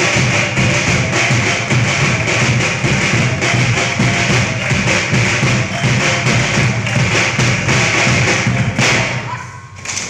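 Rhythmic randai accompaniment: a small drum beaten with sticks and a group of boys clapping their hands in a steady beat. It breaks off about nine seconds in, with one sharp hit just before the end.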